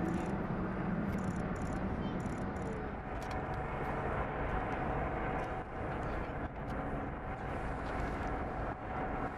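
Steady low engine drone over outdoor rumble, with a few faint clicks.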